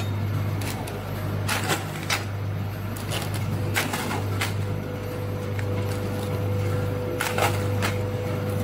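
Sealed plastic bags of biscuits being handled and set down on an electronic scale, giving a few short crinkles of the plastic film. A steady low hum runs underneath, and a faint steady higher tone joins a little before halfway.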